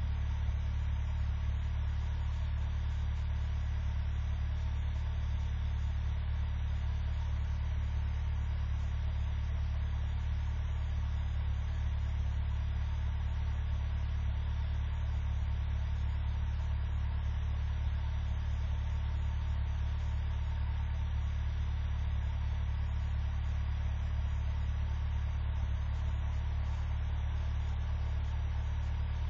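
Engine idling steadily while warming up after a hard cold start at eight below zero: an even, deep low hum that does not change.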